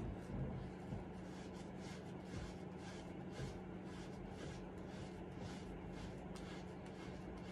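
Faint rubbing of a damp waterless body-wash cloth against the skin of an armpit, in short repeated wiping strokes, over a steady low hum.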